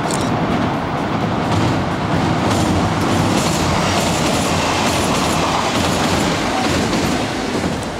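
Kintetsu Minami Osaka Line electric train passing close by on the river bridge, a steady loud rumble with wheels clattering over rail joints, fading away right at the end.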